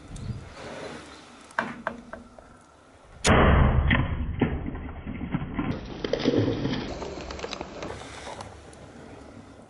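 An arrow hits a drinking warthog with a sudden heavy thump about three seconds in. A few seconds of scrambling follow as the warthog bolts across gravel and dust, then fade.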